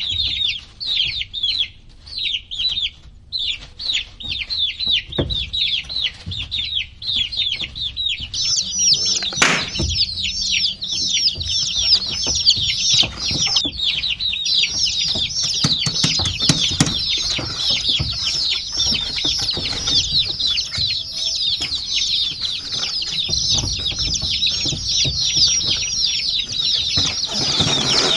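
A flock of baby chicks peeping nonstop: many short, high, downward-sliding peeps overlapping, growing denser after about eight seconds. A few sharp knocks or taps sound among them.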